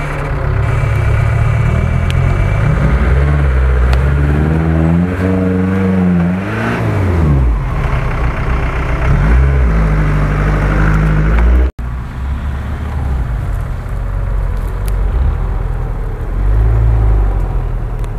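UAZ off-roader's engine pulling through deep mud, revving up and down several times, then steadying. After a sudden break about two-thirds of the way through, a pickup truck's engine runs steadily under light load with small swells in revs.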